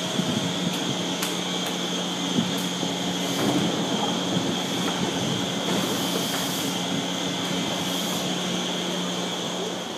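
Commuter train noise: a steady hum and rumble with a constant low tone, and a few faint clicks.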